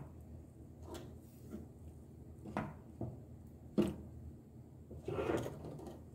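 Wooden spoon stirring a runny mix of toasted corn flour, cheese and water in a copper pan, with a few quiet knocks of the spoon against the pan and a longer scrape a little before the end.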